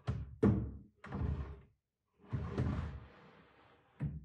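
Wooden dresser drawers being slid in and out: two knocks at the start, a longer scrape of wood running along its runners in the middle, and a thud near the end as a drawer is pushed shut.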